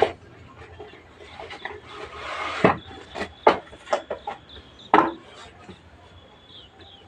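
Packaging being handled and opened: a rustle from about a second in, then several sharp knocks and taps.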